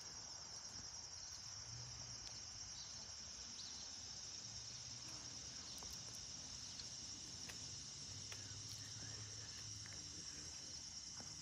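A steady high-pitched insect chorus, with a faint low rumble underneath from a Boeing 767 jet airliner passing high overhead.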